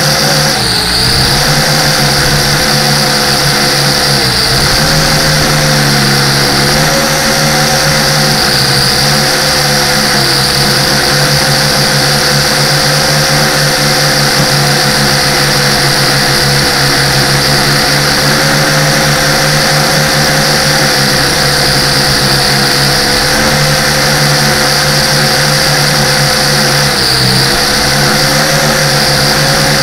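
Small multirotor drone's electric motors and propellers running steadily, a loud, even whine whose pitch dips briefly a few times.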